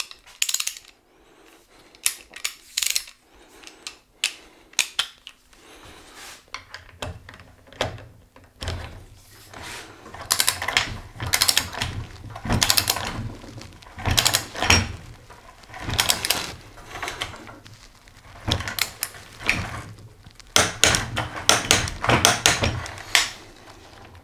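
A few sharp clicks of metal tools being fitted together, then a ratchet wrench clicking in repeated strokes, about one a second, as an 8 mm Allen bit tightens the crank's Allen screw.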